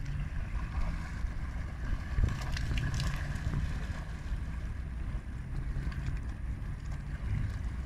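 Steady wind rumbling on the microphone, with a few faint crackles about two to three seconds in.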